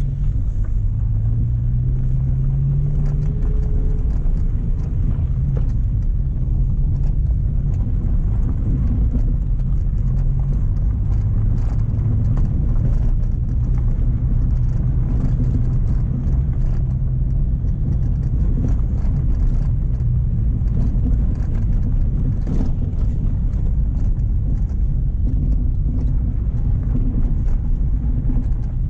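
Mk1 Renault Clio's engine pulling the car along at low speed, its pitch rising over the first few seconds and then holding steady, with scattered knocks and rattles as the car bumps over a rough track.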